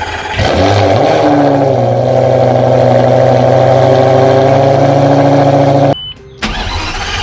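Lamborghini Gallardo V10 cold-starting through a custom straight-piped exhaust. About half a second in it catches loudly and then settles into a steady high idle. About six seconds in the sound cuts off abruptly, and the engine returns more quietly, beginning to rise in pitch near the end.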